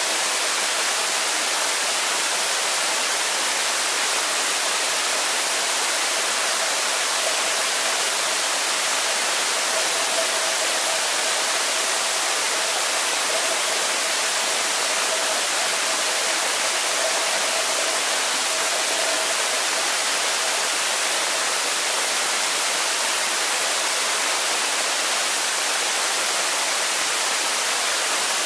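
Steady, even hiss of underwater pool ambience picked up by a camera in a waterproof housing on the pool floor, with a faint steady tone in the middle range that is clearest midway through.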